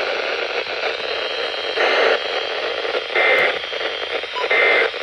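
Weather radio receiver hissing with static, then three short bursts of EAS digital data tones about 1.3 seconds apart: the end-of-message code that closes the alert broadcast.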